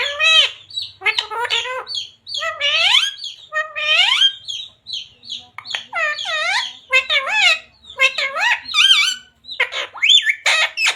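Pet parrot squawking and chattering in quick succession, each call a fraction of a second long and bending up and down in pitch, with short high chirps in between.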